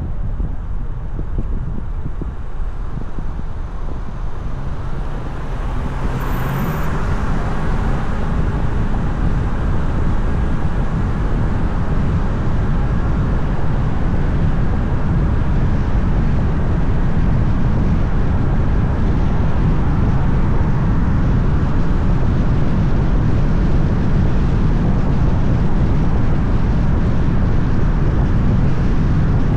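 A car driving, heard from a camera mounted outside on the edge of its hood: steady road and wind noise with the engine underneath, softened by the camera's wind reduction. It grows a little louder about five seconds in, then holds steady.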